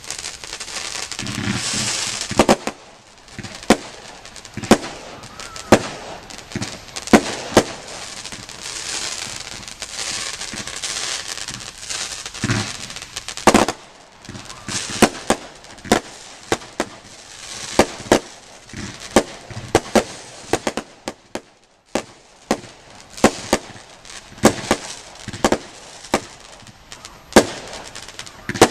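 Category F2 consumer fireworks going off: a run of sharp bangs, often one or two a second, with hissing and crackling between them.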